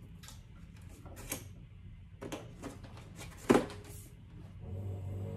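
Hard plastic clicks and knocks from a Shark Navigator upright vacuum's handle wand and body being handled and fitted together, with one sharp, louder knock about three and a half seconds in. Background music comes back near the end.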